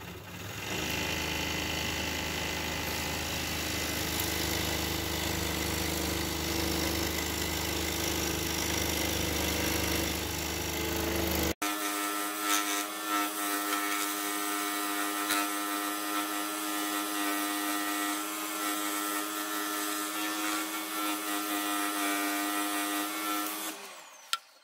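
Pégas 21-inch scroll saw running steadily, its fine fretsaw blade cutting a wooden tree slice. The sound breaks off abruptly once about halfway, resumes, and stops near the end.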